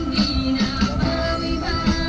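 Music with a steady drum beat and a heavy bass line.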